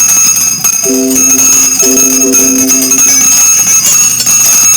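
A previewed library sound effect playing: bright metallic bell-like ringing with a steady high tone, and lower held tones coming in twice, about a second in and again about two seconds in.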